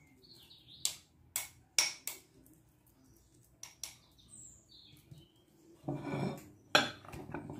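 A metal spoon clinking and scraping against a small bowl as cooked rice is packed into it, in a series of sharp clicks, with a louder knock of dishware near the end. Birds chirp faintly in the background.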